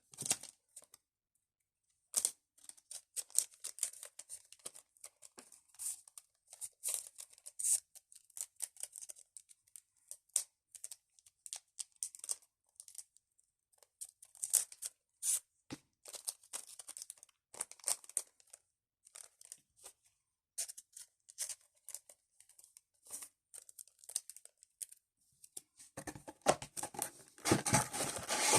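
Packaging being torn open and crinkled by hand: a run of irregular tearing, crackling and rustling, thickest and loudest near the end.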